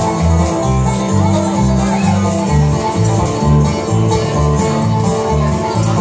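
A bluegrass band playing live: banjo picking over strummed acoustic guitar, with upright bass notes about twice a second.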